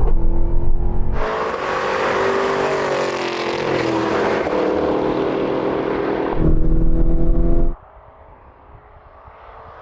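V8 engines of high-performance SUVs running hard in a drag race, the sound changing abruptly between a heavy, deep drone and a brighter engine note mixed with rushing noise. About eight seconds in it cuts suddenly to a much quieter hum.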